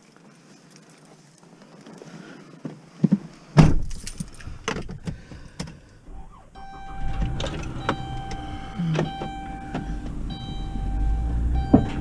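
Keys jangling and knocks as a driver gets into a minivan, then its engine running with a steady electronic tone sounding from about six seconds in, cutting off twice.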